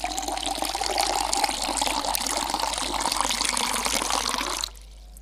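Tea poured in a steady stream from a teapot into a glass, with a slowly rising note in the splash. The pour stops near the end.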